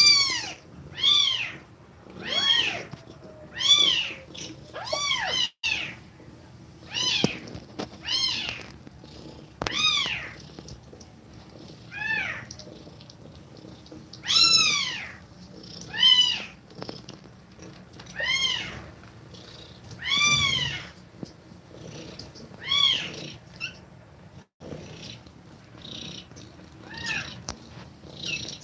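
Kittens mewing over and over, high-pitched calls that rise and fall in pitch, about one every second or two, with a pause in the calling near the end.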